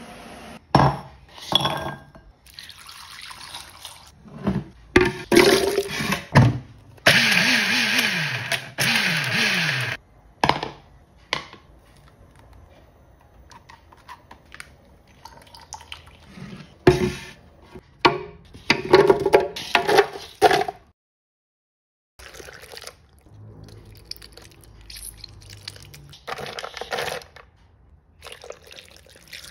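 A string of short kitchen food-prep sounds: bowls and utensils clinking, and liquid pouring and splashing.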